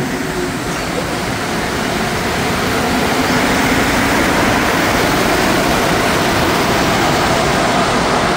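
Montreal Metro MR-73 rubber-tyred train running beside the platform: a loud, steady rushing noise that builds over the first three seconds and then holds.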